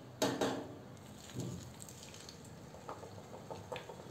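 Flattened green garlic vadas slipped into hot oil in a kadhai for their second fry, with a short burst of sizzle as one goes in, then the oil bubbling softly around them.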